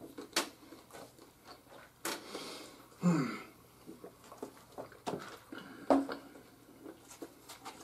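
Chewing and crunching of crispy oven-baked pizza rolls, with scattered small clicks from hands and plates. A drink is taken from a tumbler around the middle, with a short gulp.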